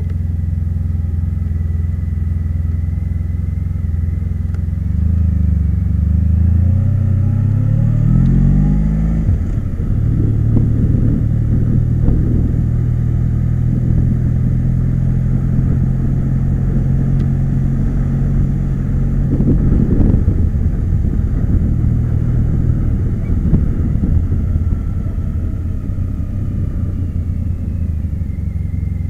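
Car engine running while driving, heard from inside the cabin. It rises in pitch for a few seconds, drops as it changes gear about nine seconds in, then runs steadily, with a spell of rougher road rumble around twenty seconds in.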